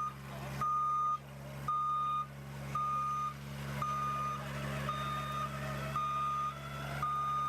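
A vehicle's reversing alarm beeping, about one beep a second, over a steady low engine hum as the vehicle backs up.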